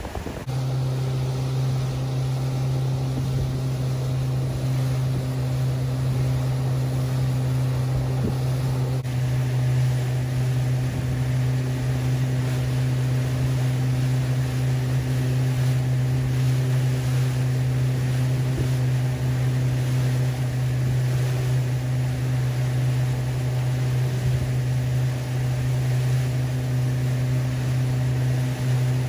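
A boat engine running steadily: one low, unchanging drone with overtones, over a hiss of wind and water.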